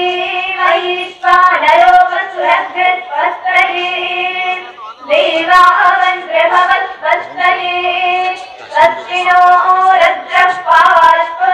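A high voice sings a slow melodic devotional song, holding and bending long notes in phrases separated by short breaths, with a few sharp clicks here and there.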